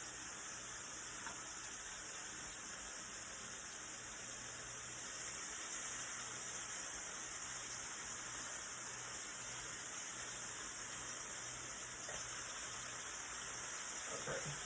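Bacon sizzling steadily as it fries in a pan, a continuous crackling hiss.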